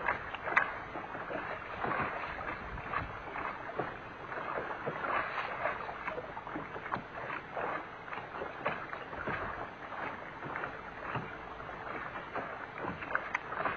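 Small wind-driven waves lapping against a boat's hull: irregular little slaps over a steady wash of water.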